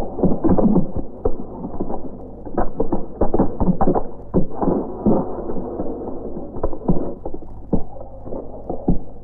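Bricklayer's trowel scraping wet mortar and knocking bricks into place, giving irregular scrapes and knocks.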